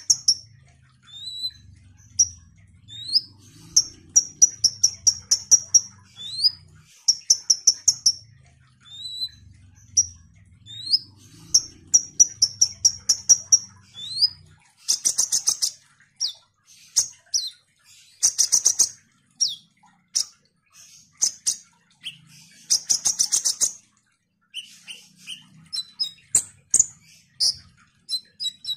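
Male kolibri ninja (Van Hasselt's sunbird) singing vigorously: a high-pitched chattering run of quick sweeping notes broken by bursts of fast rattling trills, with short pauses between phrases.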